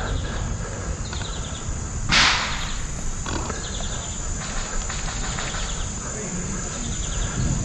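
Outdoor field ambience with a steady low rumble, several faint strings of rapid ticks like distant airsoft guns firing in bursts, and one loud rushing swish about two seconds in. A steady high tone runs throughout.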